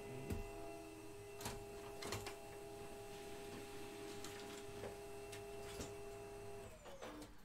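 A faint steady motor whine with a few sharp clicks, winding down and stopping near the end.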